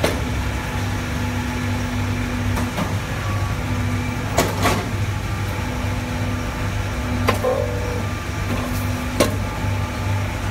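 150-ton hydraulic powder compacting press running through a pressing cycle. A steady hum carries under a higher tone that cuts in and out as the press works, with several sharp clacks as the ram and the powder feed shoe move, two of them close together a little before halfway.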